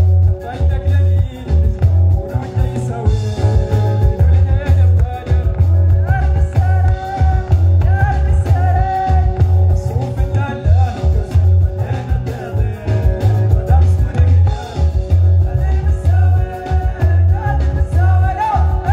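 Live band with electric guitars, bass guitar and drum kit playing through a PA, with a voice singing over a heavy, steady bass line.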